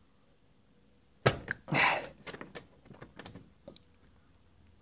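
Metal Allen key working inside a uPVC door's lock case through the empty euro-cylinder hole, pushing at the latch: a sharp click about a second in, then a short scrape and a few light ticks.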